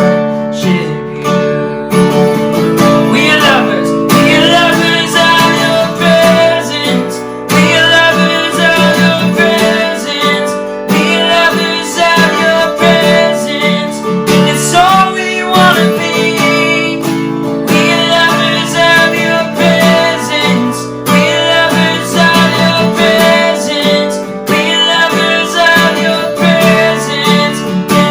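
Live contemporary worship music: a strummed acoustic guitar over sustained chords from the band, playing between sung lines of the song.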